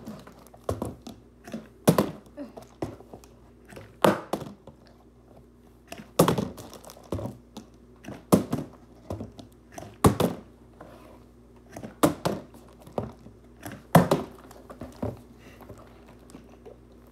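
A hand-held red spinning toy knocking sharply about every two seconds, each knock followed by a few softer clicks, as it is swung and caught; the knocks stop a little before the end.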